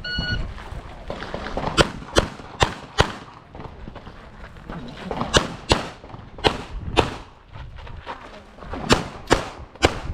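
A short electronic beep, a shot timer's start signal, then handgun shots fired in quick strings of two to four, each shot about half a second apart, with pauses of a second or two between strings as the shooter moves between targets.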